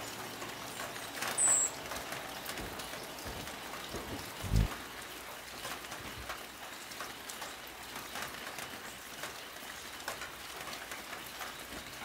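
Outdoor ambience: a steady hiss with many faint scattered ticks. One short, high chirp comes about a second and a half in, and a single low thump about four and a half seconds in.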